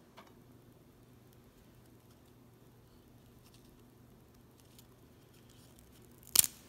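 A crisp fried chakli (rice-flour murukku spiral) snapped in two by hand: one sharp, loud crack near the end, followed by a few small crumbly crackles. Before it, faint ticks of the spiral being lifted off the plate and handled.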